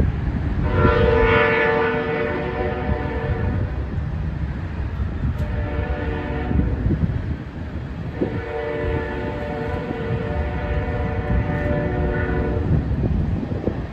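Union Pacific ET44AH locomotive's K5HL five-chime air horn sounding two long blasts for a grade crossing, the first about six seconds long and the second about four and a half, with a short gap between them. A low rumble of the passing train runs underneath.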